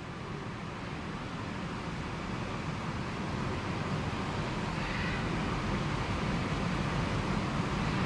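Steady outdoor background rumble, low and even, growing gradually louder, with no distinct event standing out.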